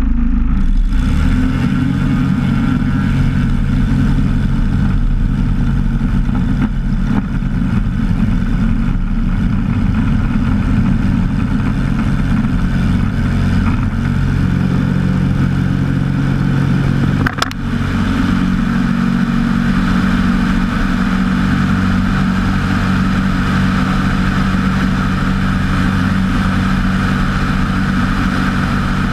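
Storch HS ultralight's engine and propeller running steadily through the takeoff roll on grass and the lift-off, heard from outside the cabin with rushing air. Past the middle there is one short sharp knock with a dip in level, after which the wind hiss grows.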